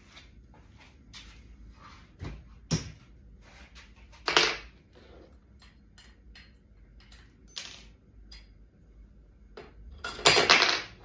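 Metal bow vise parts being handled and fitted onto a clamp base: scattered clicks and knocks, a louder clunk about four seconds in, and a longer clatter near the end.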